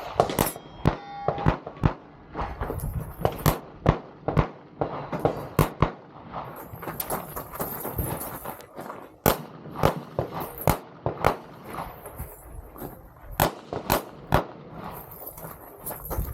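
Handgun shots fired in an IDPA course of fire: a long string of sharp reports at an uneven pace, often in quick pairs, with pauses between bursts as the shooter moves and engages targets.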